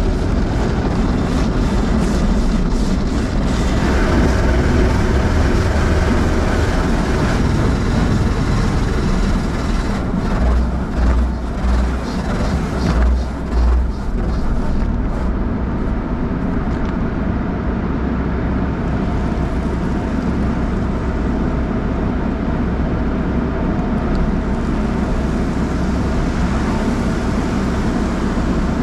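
Automatic car wash heard from inside the car: a steady rush of water spray over the body and a low machinery rumble. About halfway through, the wash brushes sweep across the windshield with a run of low thumps.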